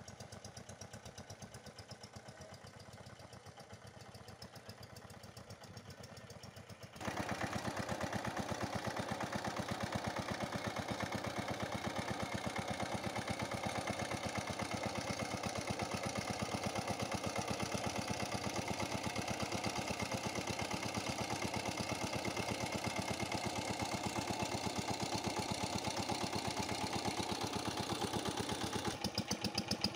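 Small single-cylinder diesel engine driving a water pump, running steadily under load as it pumps water out of a pond. It is fainter at first and much louder from about seven seconds in.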